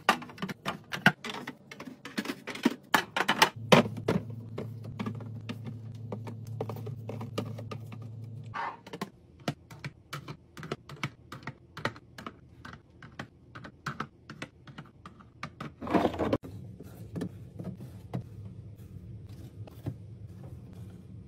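Many quick light clicks, taps and knocks of items and plastic containers being handled and set down while a fridge is restocked, over a low steady hum that comes and goes.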